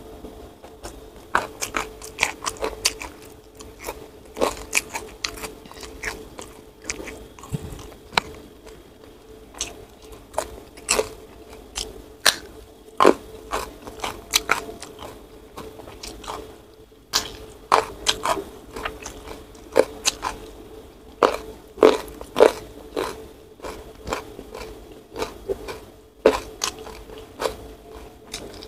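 Close-miked chewing and biting of a hand-eaten meal of rice, sambal and petai beans: irregular crisp crunches and wet mouth clicks, several a second, some much louder than others.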